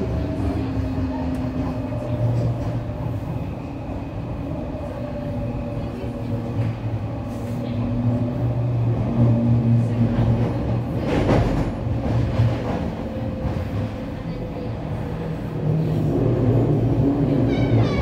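Docklands Light Railway train running, heard from inside the carriage: a steady hum with several held tones, and a brief louder rush about eleven seconds in.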